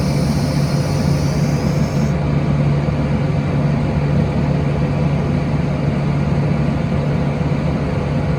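Tractor's diesel engine running steadily, a constant low drone, with a faint high whine over it for the first couple of seconds.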